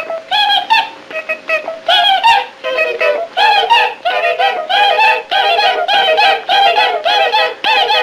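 Old cartoon soundtrack of rapid, repeated, high pitched warbling calls, cartoon animal noises voiced or played as music, growing into a steady run of about three calls a second from midway on.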